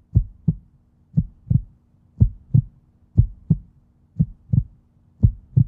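Deep heartbeat-like double thumps, about one pair a second, heard alone where the rest of the backing track drops out.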